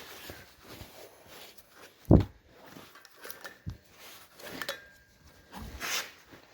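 Light knocks and rustles of things being handled, with one dull thump about two seconds in.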